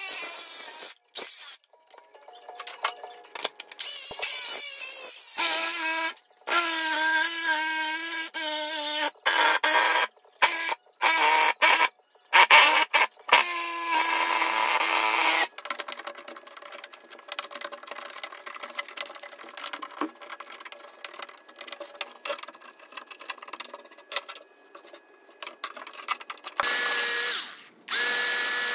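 Cordless circular saw cutting across a thick black walnut slab in a string of short runs, the motor whine bending down under load, with sudden breaks between runs. It gives way to a quieter, fluttering reciprocating saw finishing the cut. Near the end a loud hissing run leads into an angle grinder starting up.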